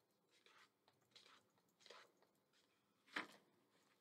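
Faint rustling of paper book pages being leafed through: a few soft swishes, then one louder, short page rustle a little after three seconds in.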